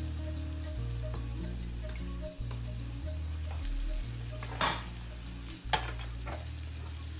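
Onions frying in butter sizzle gently in a small kadai while a spoon stirs a thick wheat-and-rice porridge in a steel pot. There is a sharp metal clink about four and a half seconds in and lighter clinks over the next two seconds.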